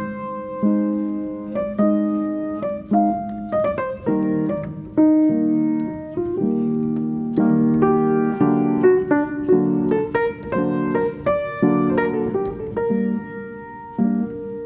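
Background piano music: a calm run of chords and melody notes, each struck and then fading.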